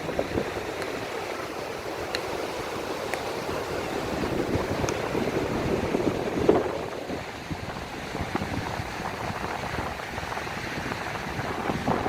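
Calm sea waves washing in, a steady rush that swells to a surge about six and a half seconds in and again near the end.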